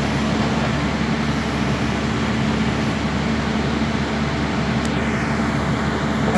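Heavy diesel machinery engine running steadily, a construction excavator at work. About five seconds in, a high whine slides down in pitch.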